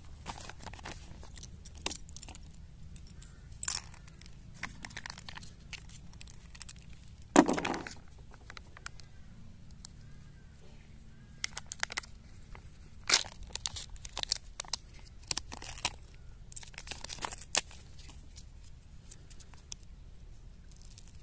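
Kinder Joy packaging crinkling and tearing: a paper leaflet is handled and a foil lid is peeled off the plastic cup, in scattered short crackles and clicks. One louder crack comes about seven seconds in.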